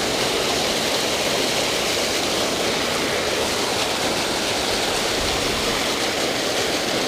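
Steady rush of water pouring over a creek spillway.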